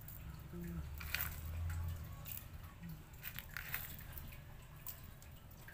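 Small pebbles clicking and soil crunching as they are set by hand on top of a potted succulent, with a few scattered clicks.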